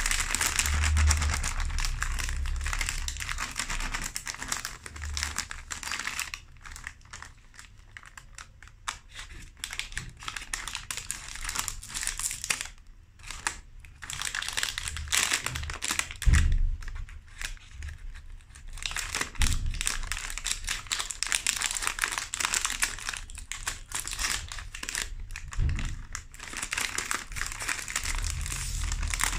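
Plastic wrapper of a Milka Cookie Sensations pack crinkling and rustling in bursts as it is handled and cut open with scissors. A few soft knocks come in the middle and later part.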